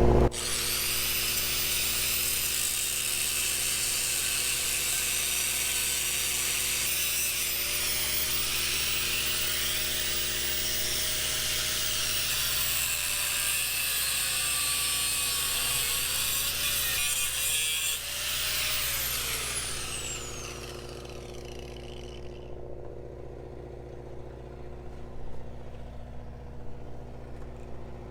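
Angle grinder cutting through seized bolts, a steady high-pitched grind that stops about 18 seconds in, after which the disc winds down with a falling whine. A steady low hum continues underneath.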